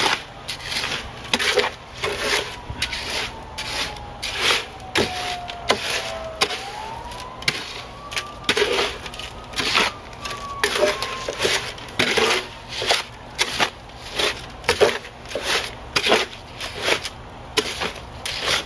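Concrete being mixed by hand in a wheelbarrow: a long-handled tool scrapes and chops through the mix in repeated strokes, roughly two a second.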